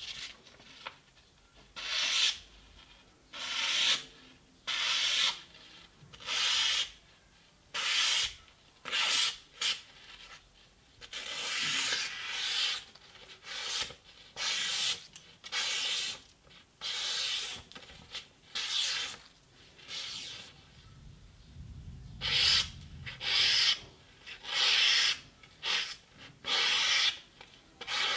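The sharpened blade of a Japanese kitchen knife slicing through a sheet of printer paper again and again as a sharpness test, with a hissing stroke about once a second and a few longer, drawn-out cuts.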